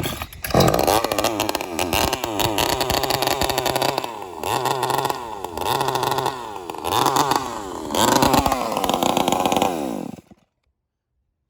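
Two-stroke Joncutter 5800 chainsaw running on alcohol fuel, revved up and let back down several times, then cut off abruptly about ten seconds in. It runs poorly, which the owners suspect comes from a fuel line and filter that cannot draw fuel fast enough.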